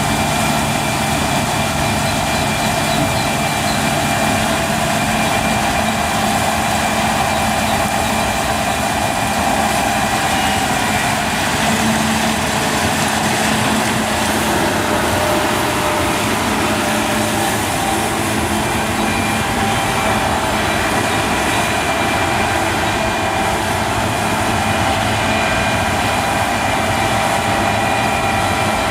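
John Deere combine harvester running steadily while harvesting barley: a continuous machinery drone with several steady whining tones over it.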